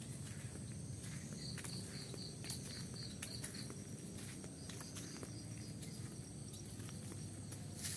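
Rural outdoor ambience. Insects keep up a steady high drone, and a run of about eight quick high chirps comes a couple of seconds in. Scattered clicks and knocks of footsteps and handling are heard, with a sharper knock near the end.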